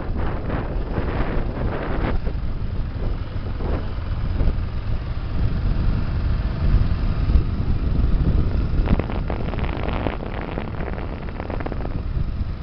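Wind buffeting the microphone: a low, gusty rumble that swells and eases, with a few stretches of broader rushing noise.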